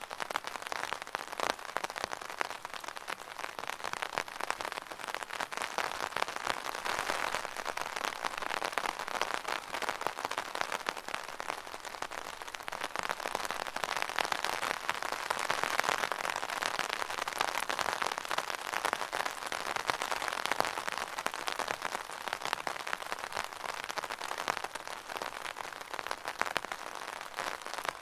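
Steady rain falling on an umbrella canopy: a dense stream of close drop hits that grows heavier for a while in the middle.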